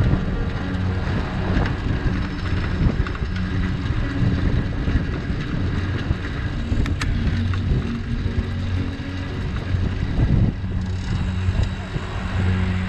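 Riding a long john cargo bike through city traffic: wind buffeting the microphone and tyre noise on the asphalt, with motor traffic running alongside. A low steady hum runs through most of it, breaking off briefly about ten seconds in, and there is one sharp tick about seven seconds in.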